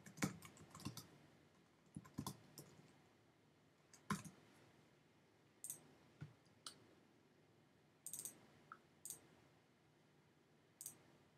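Scattered sharp clicks of a computer mouse and keyboard, about a dozen, some in quick pairs like double-clicks, over faint room tone.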